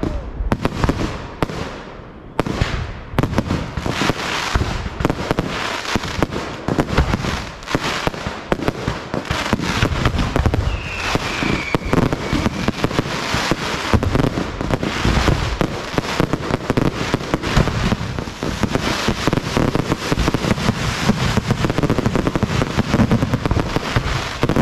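Caffero Golden Spider aerial display shells bursting in rapid succession: a dense, continuous barrage of bangs and crackle with no break.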